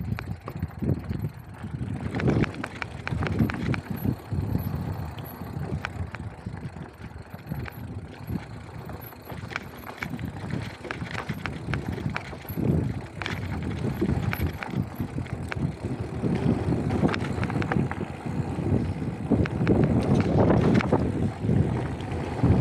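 Mountain bike ridden over a rocky dirt trail: tyres crunching over loose gravel and the bike rattling and clattering over the bumps, with a steady low rumble underneath that gets louder towards the end.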